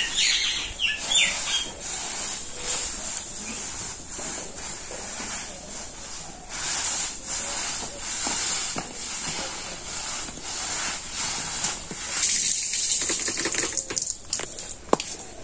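Outdoor ambience: a steady high-pitched hiss runs throughout, with irregular rustling or splashing noises. A few short bird chirps come in the first second or so.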